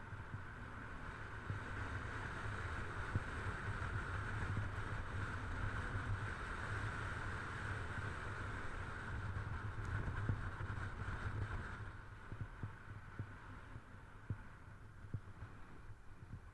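Wind buffeting the microphone of a helmet camera at speed, a low throbbing rumble, with the steady hiss of boards sliding and carving over groomed snow; both ease off about twelve seconds in.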